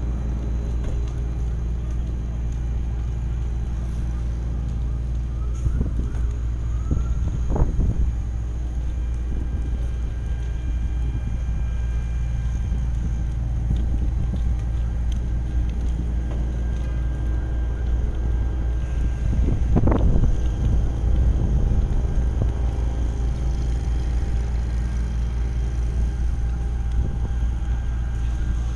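Wind buffeting the microphone over the steady drone of fire engines running, with two stronger gusts, one about a quarter of the way in and one past the middle.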